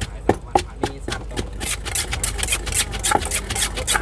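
Pestle working a salad in a mortar: a few separate knocks, then from about a second and a half in a quick, steady run of strokes with a scraping sound.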